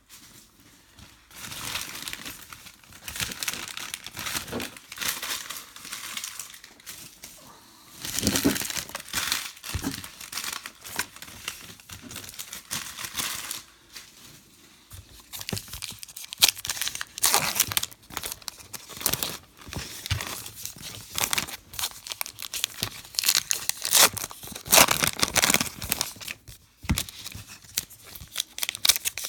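Trading card pack wrappers crinkling and tearing open, with cards rustling as they are handled. Irregular crackles, busier and louder in the second half.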